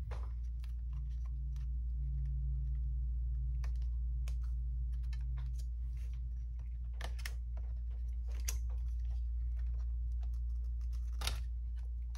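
Scattered light clicks and taps of small tools, screws and parts being handled on an opened aluminium MacBook during disassembly, over a steady low hum.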